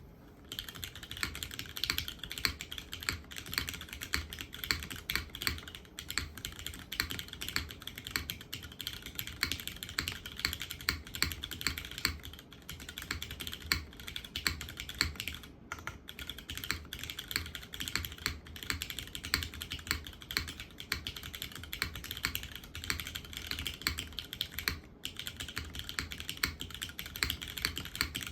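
Steady, continuous typing on a custom 65% mechanical keyboard, a Drift Mechanics Forever65 with a polycarbonate case, full aluminium plate and gasket mount. It has broken-in Cherry MX Hyperglide Black linear switches, lubed, filmed and fitted with 55 g springs, and GMK keycaps. The key strokes come in a dense run with a couple of short pauses.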